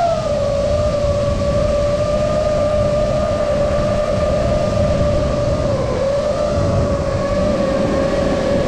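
FPV drone's motors and propellers whining at a steady pitch, with small rises and dips in pitch, over a low rushing noise.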